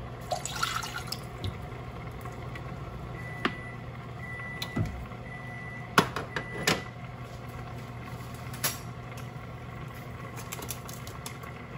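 Rice vinegar poured from a small bowl into a saucepan: a brief splash and trickle in the first second or so. Then several sharp clicks and knocks, the loudest about six seconds in, over a steady low hum.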